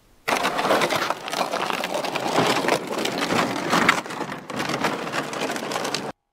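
Plastic sled loaded with ice-fishing gear dragged over crusty snow on the ice, heard close up as a loud continuous scraping crunch with a couple of brief lulls. It cuts off suddenly just before the end.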